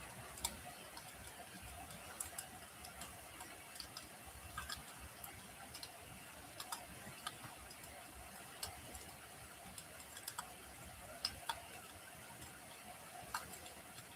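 Wood fire burning in a fireplace: irregular sharp crackles and pops over a steady low hiss and rumble of the flames.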